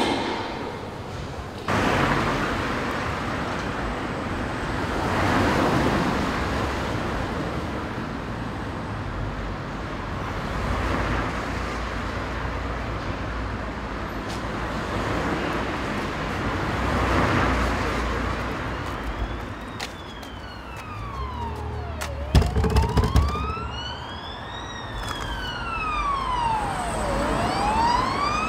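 Street traffic noise that swells and fades every few seconds. About two-thirds of the way in, an emergency vehicle siren starts wailing, its pitch rising and falling slowly over several seconds. A burst of loud low thumps comes shortly after the siren begins.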